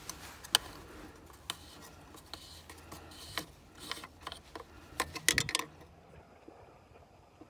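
Hands working the plastic engine cover and unscrewing the oil filler cap on a 6.7 Cummins diesel: faint scattered clicks and scrapes of plastic. They stop about six seconds in.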